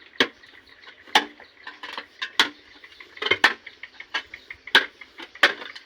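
Sharp knocks of a digging tool striking earth and stone, about one a second at an uneven pace, with fainter ticks between them.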